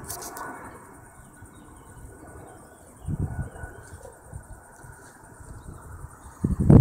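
Wind buffeting the microphone in rough low gusts, one about three seconds in and a louder one near the end, over a steady high chirring of insects.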